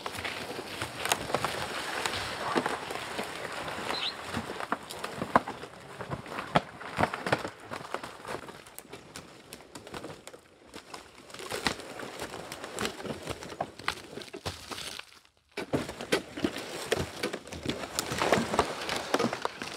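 Footsteps crunching and rustling along a woodland trail: irregular, crackling steps.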